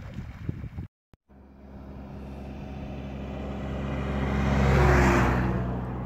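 A motor vehicle on the road approaching and passing close by. Its engine and tyre noise grow steadily louder to a peak about five seconds in, then fade.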